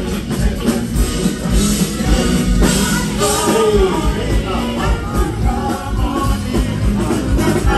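Live band playing amplified music with a steady beat, a singer's voice carried over the top through the middle, during a sound check.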